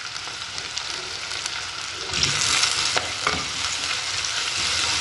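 Sliced shallots, garlic, ginger, green chillies and curry leaves sizzling in hot coconut oil in a clay pot while a wooden spoon stirs them. The sizzle grows louder about two seconds in, with a couple of light knocks from the spoon around the middle.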